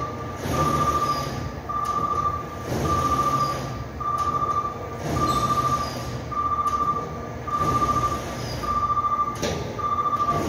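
An electronic warning beeper sounding one steady high tone about once a second, each beep nearly a second long, over a constant low background rumble; the beeping stops near the end.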